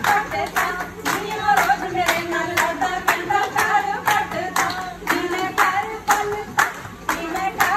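A group of women clap their hands in a steady rhythm, about two to three claps a second, in time with singing, as in Punjabi giddha.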